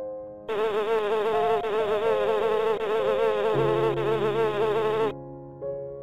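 A bee buzzing, its pitch wavering up and down. The buzz starts about half a second in and stops abruptly about five seconds in.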